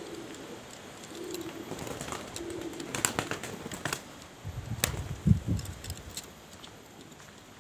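Domestic pigeons cooing in short low calls, then a sudden flurry of clicks and loud wing flapping close by, about three to six seconds in.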